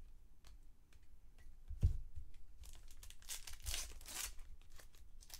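Foil trading-card pack wrapper crinkling and tearing as a pack of baseball cards is opened and handled. A single thump comes about two seconds in, and the crinkling is loudest a little past the middle.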